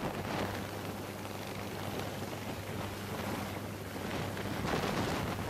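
Helicopter lifting off close by: a steady rushing of rotor wash and turbine noise with a low, even hum, growing a little louder near the end.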